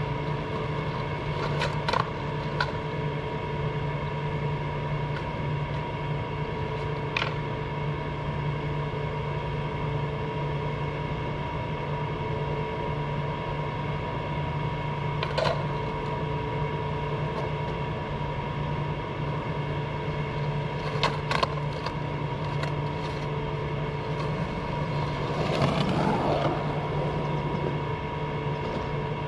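A steady mechanical hum at a constant pitch, with a few scattered sharp clacks and a brief rougher, scraping noise about three-quarters of the way through.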